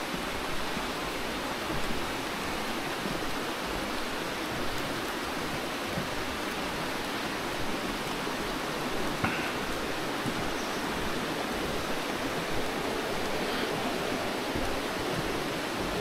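Rocky stream rushing steadily over stones, an even wash of water noise, with a few faint ticks.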